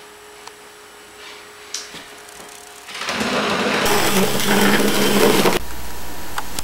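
A loud mechanical whirring with a low hum in it, like a small motor running. It starts about three seconds in, gets louder a second later and cuts off abruptly near the end. Before it there is only faint room hum with a steady tone and a couple of small clicks.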